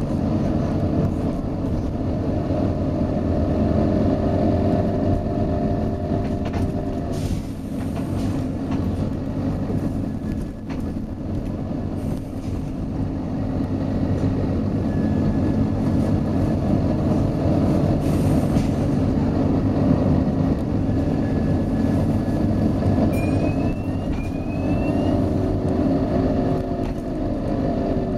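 Volvo B9TL double-decker bus's six-cylinder diesel engine and drivetrain running steadily as the bus drives. Two brief hisses come about 7 and 18 seconds in.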